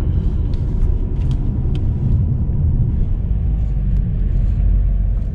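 Car driving along a road: a steady low rumble of tyres and engine, with a few faint ticks.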